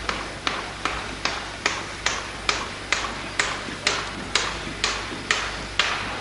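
A squad of soldiers marching in step, their boots striking the asphalt in unison about twice a second. The steps stop near the end.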